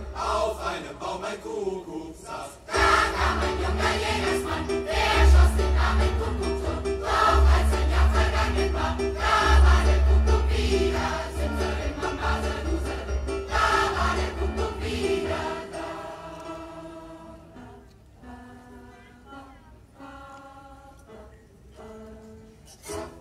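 Large mixed choir of children and adults singing with accompaniment, amplified through a PA. About two thirds of the way in the singing grows quieter, ending on softer held notes.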